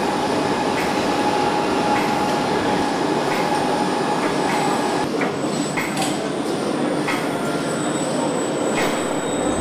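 Steady industrial background noise with a high whine held for the first half and a few faint clicks.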